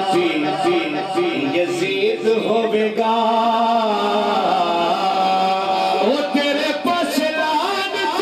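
A man singing a naat into a microphone in slow, drawn-out phrases, holding one long wavering note through the middle.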